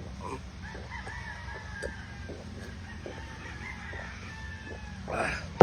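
A rooster crowing one long drawn-out call, over short crunching clicks of crispy fried pork ribs being chewed. A brief louder sound comes near the end.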